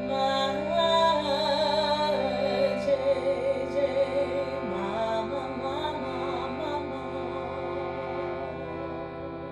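A woman singing a slow, wavering devotional melody over the sustained drone chord of a harmonium.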